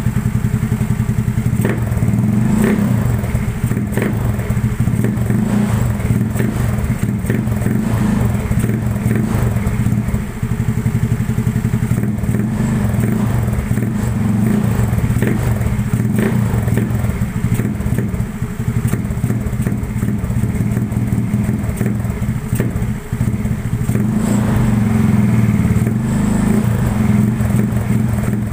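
Yamaha Mio Sporty scooter's single-cylinder engine running through a gutted (kalkal) exhaust pipe: a steady, loud low drone with small throttle changes, a little louder about 24 seconds in.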